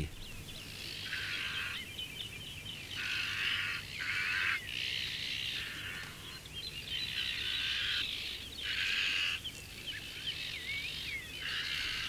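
Azure-winged magpies giving harsh, rasping mobbing calls at a snake, one after another with short gaps, with thin chirps between.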